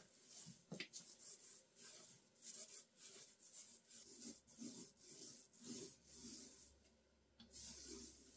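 Faint rubbing of a small paint roller rolling varnish over the wooden side of a radio cabinet, in short, irregular strokes.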